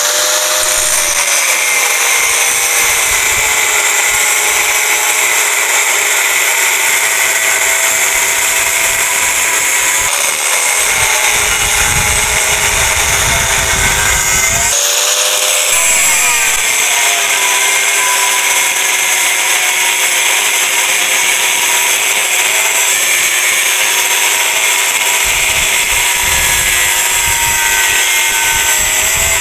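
Angle grinder cutting through the steel shell of a refrigerator compressor. It gives a steady high whine that dips in pitch a few times as the disc is pressed into the metal.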